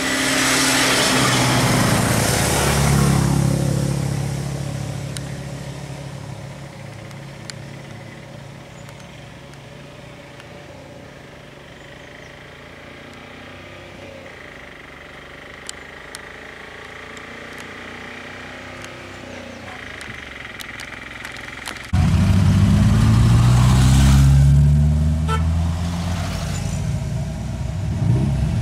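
Road vehicle engines. One passes close and fades over the first few seconds, then quieter running follows. About 22 seconds in there is a sudden switch to a loud engine revving, its pitch climbing.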